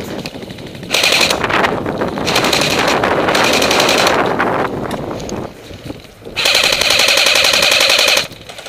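Airsoft electric guns firing long bursts of full-auto: a rapid, steady rattle of about four seconds starting a second in, then another burst of about two seconds near the end.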